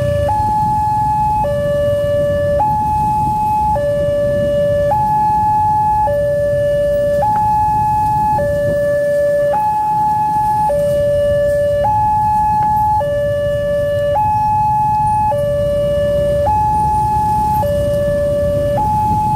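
Railroad level-crossing electronic warning alarm sounding a two-tone hi-lo signal, switching between a lower and a higher pitch about once a second: the warning that a train is coming and the barrier is down. A low rumble of road traffic runs underneath.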